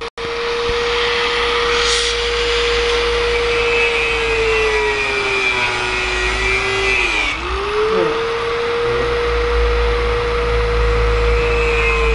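Electric power tool cutting bamboo: its motor runs with a steady whine that sags in pitch about six to seven seconds in as it bogs under the load, then recovers.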